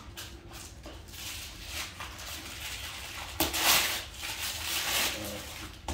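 Packaging being handled and pulled at: uneven rustling and scraping, with a louder burst of rustling about three and a half seconds in.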